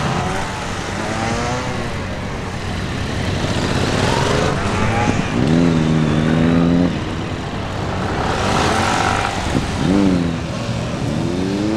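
Yamaha XSR700 parallel-twin engine revving up and dropping back again and again as the motorcycle is ridden through tight practice turns, with one held rev in the middle.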